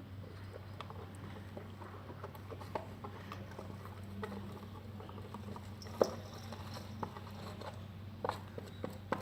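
Homemade soap slime being worked in its container: scattered small wet clicks and taps, with one sharper tap about six seconds in and a few more near the end.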